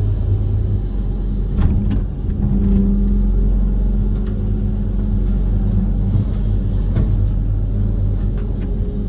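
Diesel engine of a Kobelco SK130 amphibious excavator running steadily, with a few sharp knocks over it.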